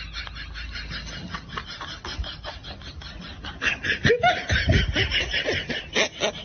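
Laughter: a long run of quick, breathy snickers, growing louder about three and a half seconds in.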